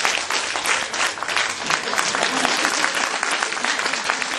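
Crowd of spectators applauding, a steady spatter of many hands clapping.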